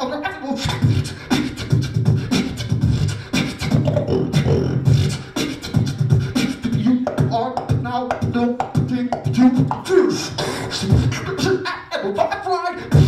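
Beatboxing into a cupped handheld microphone over a PA: a fast, steady stream of kick, snare and hi-hat sounds made with the mouth, mixed with short pitched vocal notes.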